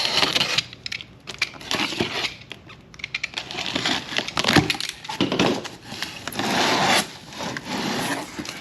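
A cardboard box being opened and its packing handled: irregular rustling, scraping and crackling of cardboard and packaging, with sharp cracks and clicks.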